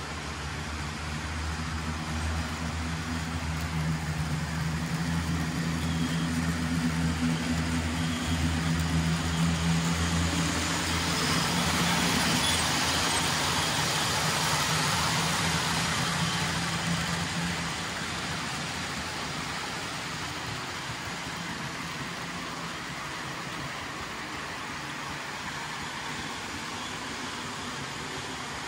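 Model trains running on layout track, with a steady motor hum and wheel noise. The sound swells as a model Amtrak passenger train passes close by, is loudest for about ten seconds in the middle, then drops to a lower steady running sound as a model freight train rolls on.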